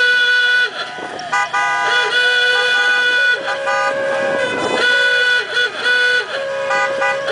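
Car horns honking over and over in long and short blasts. At least two horns of slightly different pitch overlap and alternate.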